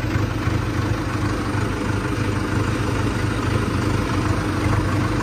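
Tractor engine idling steadily, heard close up from the driver's seat.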